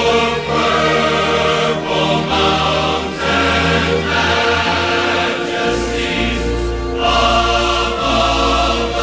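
Large choir singing in full voice, holding long chords that change every second or so over a deep sustained bass.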